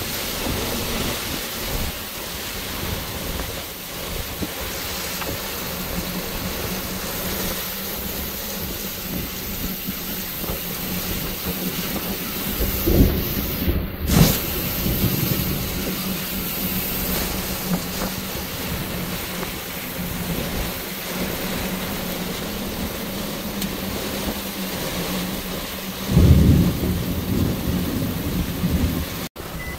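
Heavy rain pouring down in strong wind, a steady hiss of rain on the ground. A few louder low rumbles break through, two short ones about halfway and a longer one near the end.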